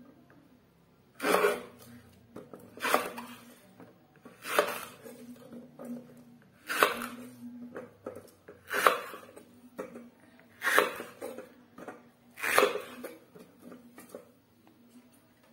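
Kitchen knife chopping through taro stalks onto a wooden cutting board resting on a steel bowl: seven sharp knocks with a short ring after each, about one every two seconds, stopping shortly before the end.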